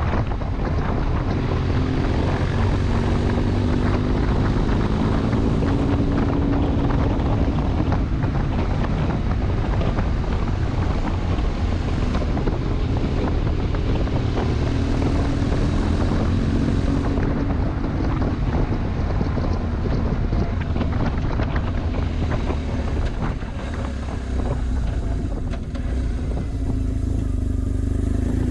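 BMW R1150 GS Adventure's boxer twin engine running as the motorcycle rides along, under heavy wind rush on the microphone. The engine note rises and falls with speed.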